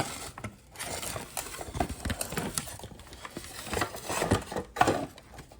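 Hard plastic parts of a car side-mirror motor assembly being handled, turned over and fitted together, with irregular clicks, scrapes and light knocks, a few sharper knocks near the end.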